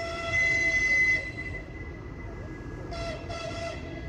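TEP70BS diesel passenger locomotive sounding its horn as it approaches: one long blast of about a second, then two short blasts near the end, over a low steady rumble.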